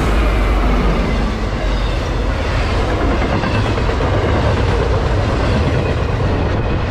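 Freight train passing close by with a loud, steady rumble: the last of the diesel locomotives goes past, then double-stack intermodal containers and trailers on flatcars roll by.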